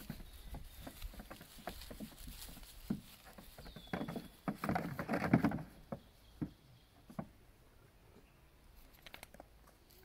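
Goat kids' small hooves tapping and clattering on a hollow plastic play slide: scattered taps, with a busier scramble of knocks and thumps about four to five and a half seconds in.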